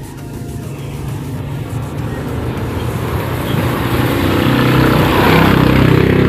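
Engine noise with a steady low rumble, growing steadily louder and peaking near the end.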